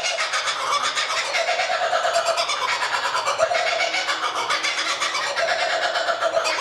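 Stadium crowd cheering loudly and steadily after an interception returned for a touchdown.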